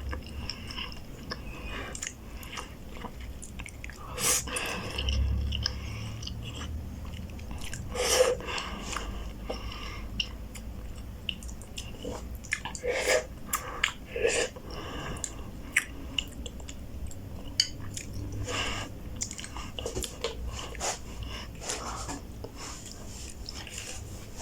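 A person eating noodles close to the microphone: wet chewing and mouth smacks with irregular clicks, a few louder bites and slurps standing out.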